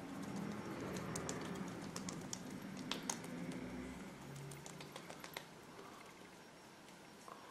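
Faint, irregular soft taps and rubbing of fingertips patting a milky face serum onto the skin.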